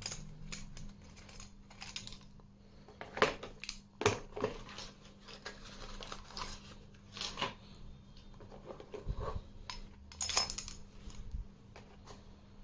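Scattered small metal clicks, clinks and handling knocks as the grip of a Beretta M9A3 CO2 air pistol is opened with an Allen key and a 12-gram CO2 cylinder is taken out and fitted, with a few sharper clicks spread through.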